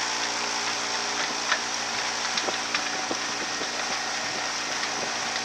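Sailboat's motor idling steadily, a low hum with a few faint ticks over it.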